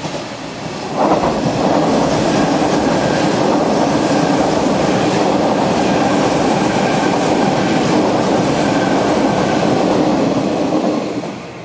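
Hanshin Railway electric train running through the station at speed without stopping. It makes a loud, steady rush of wheels on rail that rises sharply about a second in and falls away just before the end.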